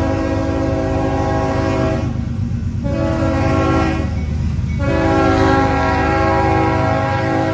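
Union Pacific diesel freight locomotive's air horn blowing, held long and broken off twice, about two seconds in and again about four seconds in, over the low rumble of the approaching train.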